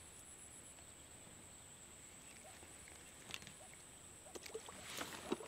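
Quiet marsh ambience: a faint steady high-pitched whine over low hiss, with a few soft clicks and small knocks in the last two seconds.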